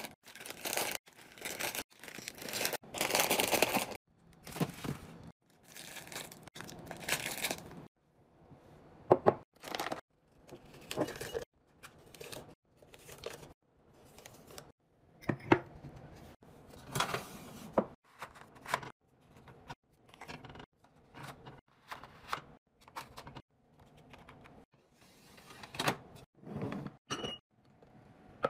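Plastic snack bags and wrappers crinkling and rustling as they are handled and packed into a plastic bin and glass jars. The rustling comes in short bursts with brief pauses, with a few sharp knocks.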